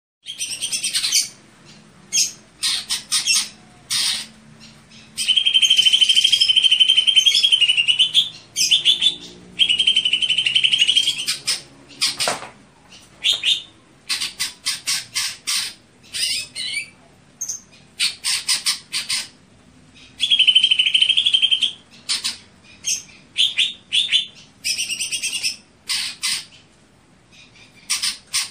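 Green leafbird (cucak hijau) singing: short bursts of rapid, stuttering notes broken by pauses, and three longer trilled phrases of one to three seconds.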